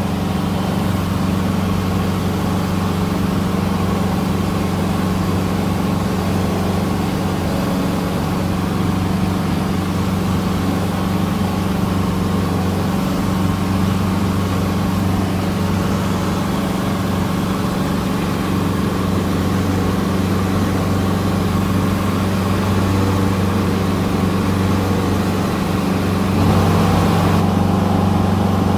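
Cessna 150's four-cylinder Continental O-200 engine and propeller droning steadily in cruise, heard from inside the cockpit. The level rises slightly near the end.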